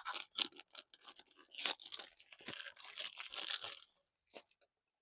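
Fragrance box packaging being torn open and handled: irregular crinkling and tearing crackles that stop about four seconds in.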